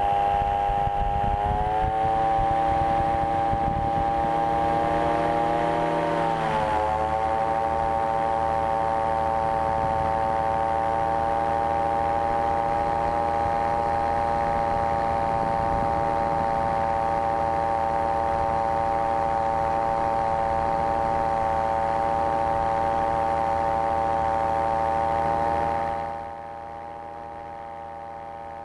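Dragonfly SSDR microlight trike's engine and pusher propeller running at full takeoff power, a steady high drone. A rough rumble from the wheels on the runway lasts the first several seconds and stops as the trike lifts off, with a brief dip in engine pitch; near the end the sound drops suddenly in loudness.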